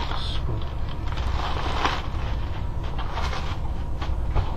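Snack bags and packaging rustling and crinkling on and off as items are pulled from a care-package box, over a steady low hum.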